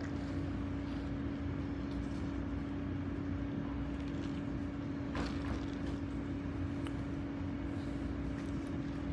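A steady hum with one constant tone over even background noise, with a couple of faint clicks about five seconds in.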